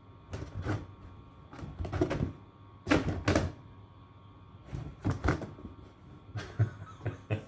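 Plastic shoe-box rack being handled: hollow plastic knocks and clacks as its hinged doors open and shut and a shoe is set inside. The knocks come in close pairs, about half a dozen times.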